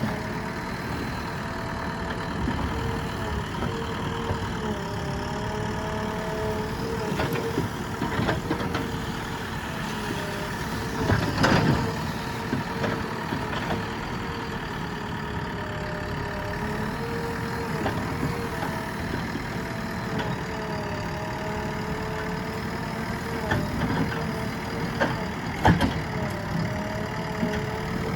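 JCB backhoe loader's diesel engine running while it works, its pitch rising and falling as the load comes and goes, with a few knocks, the loudest about eleven seconds in.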